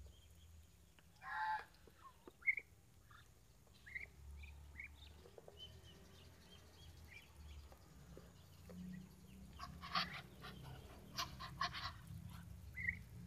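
Muscovy ducks feeding from a tub of black soldier fly larvae and fermented mash: a short call about a second in, scattered short chirps, and a quick run of sharp pecking clicks from about ten to twelve seconds in.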